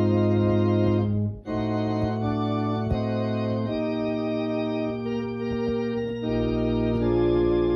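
Instrumental music of slow, held keyboard chords that change every second or two, with a brief gap about a second and a half in.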